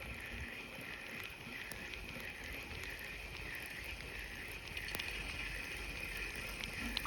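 Insects droning steadily, a high buzz that pulses about twice a second, over a low rumble of wind, with a couple of small clicks near the end.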